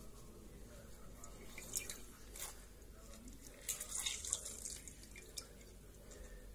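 Lemon halves squeezed by hand over a glass bowl of water: juice drips and spatters into the water in a few short splashes, busiest about four seconds in.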